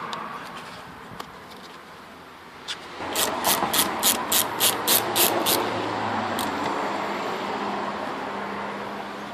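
Hand ratchet wrench clicking in quick, even strokes, about four clicks a second for a couple of seconds, as it turns a fastener on the Mazda 5's door mirror mount; a steady background rush runs underneath.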